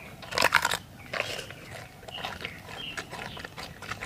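Giant panda biting and chewing a bamboo shoot: crisp, irregular crunches, with a louder run of bites about half a second in.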